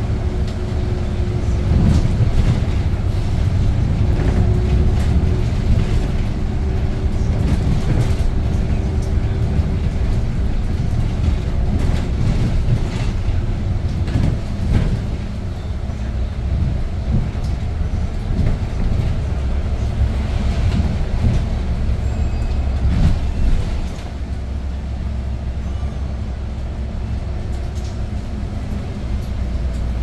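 Cabin sound of a Hyundai New Super Aero City city bus under way: the low drone of its CNG six-cylinder engine with road noise and the knocks and rattles of the cabin fittings. The sound drops somewhat a little over three-quarters of the way through.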